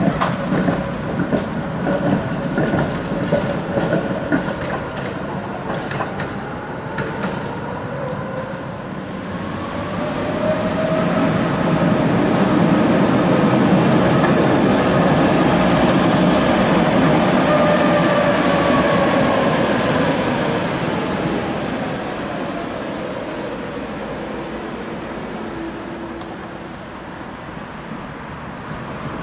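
Electric articulated trams running on street tracks. Wheels clatter over rail joints in the first few seconds. Later a tram's motor whine rises and then falls in pitch as it passes, loudest about halfway through, then fades away.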